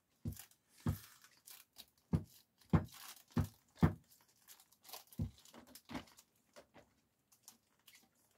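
Plastic wrapping crinkling with a series of thumps as a still-wrapped Arrma Gorgon 1/10 RC monster truck is pushed down repeatedly to compress its suspension. There are about eight thumps in the first six seconds, then only faint rustles.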